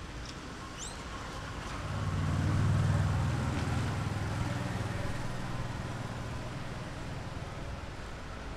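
Low engine hum of a passing vehicle, swelling about two seconds in, loudest around three seconds, then slowly fading away. A few brief high chirps near the start.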